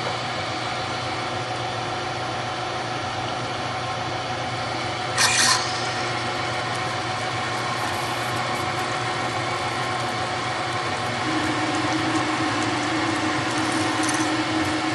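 Hardinge lathe spindle running steadily while a number 21 drill is fed through a small insert under flowing coolant, drilling for a 10-32 left-hand thread. A short hiss comes about five seconds in, and a steady tone joins the running sound around eleven seconds in.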